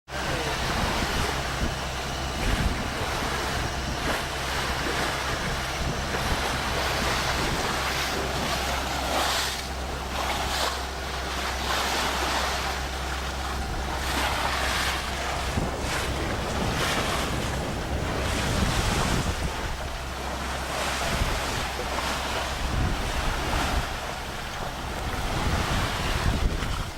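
Wind buffeting the camcorder microphone and sea water rushing past the hull of a boat under way, surging every second or two over a steady low hum.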